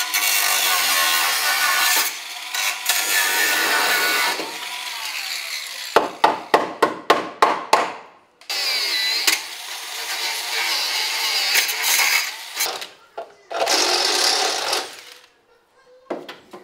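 Angle grinder cutting the sheet steel of a car body shell in several long bursts, the motor winding down between them. In the middle comes a quick run of about seven sharp metal knocks.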